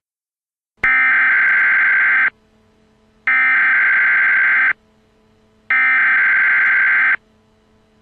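Emergency Alert System SAME header: three identical bursts of harsh digital data tones, each about a second and a half long with a pause of about a second between them. The bursts signal the start of an EAS alert, here an Emergency Action Notification.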